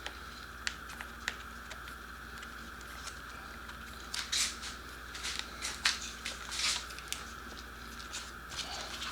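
Small clicks and rustles of plastic parts and wiring being handled and fitted by hand. There are a few isolated clicks early on and a busier spell of rustling and clicking in the middle, over a steady faint hiss.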